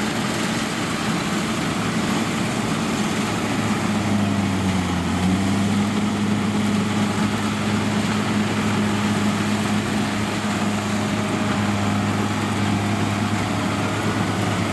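Kubota DC-93 rice combine harvester running under load as it cuts standing rice, its diesel engine giving a steady low drone. The engine note shifts slightly about four to five seconds in.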